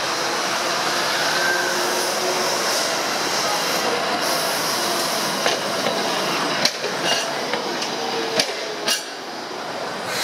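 Toyohashi Railroad streetcar running past close by, a steady rumble of the car on the rails. From about five and a half seconds in, a string of sharp clacks as its wheels cross the track joints and points.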